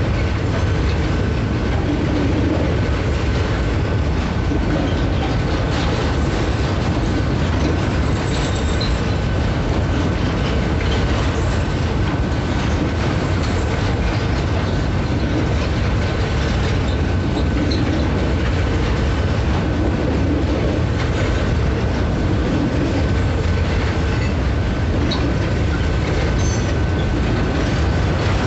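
Freight train's container wagons rolling steadily past at a level crossing: a continuous low rumble with wheels clattering on the rails. A thin steady high tone runs under it.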